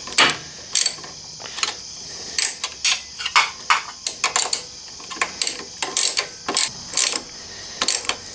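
Socket ratchet clicking in short, irregular runs as it turns a nylock nut onto a bolt, with the odd metal clink of tools.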